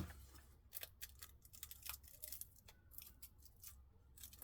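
Faint crackling and rustling of paper as the stuck-together pages of an old, greasy book are prised apart, in a few small separate crackles.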